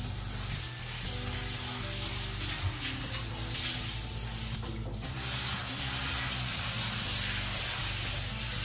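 Handheld shower spraying water onto a Great Pyrenees' soaked coat, a steady hiss that gets louder about five seconds in.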